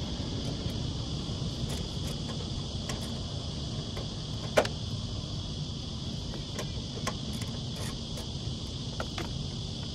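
Steady high-pitched insect chorus over a low rumble. Small clicks and one sharp knock about halfway through come from the condenser fan blade being worked by hand on the fan motor shaft, where it is stuck.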